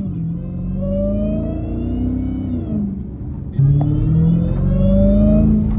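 Supercharged Hemi V8 of a Dodge Hellcat fitted with a JLT intake accelerating hard, its pitch rising, dipping at a gear change just under three seconds in, then climbing again louder, with the supercharger whine rising along with it.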